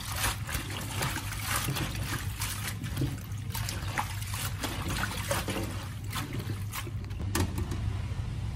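Tap water running into a steel bowl of red amaranth greens in a stainless steel sink, with hands swishing and lifting the leaves: a steady trickle broken by many short splashes.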